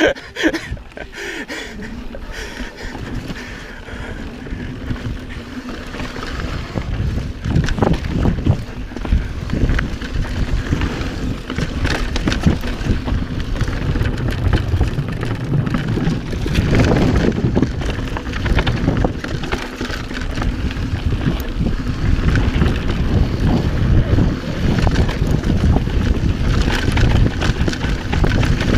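Wind rushing over the camera microphone and tyres rumbling on dirt as a mountain bike is ridden fast down singletrack, with scattered knocks and rattles from the bike over rough ground. It grows louder about halfway through.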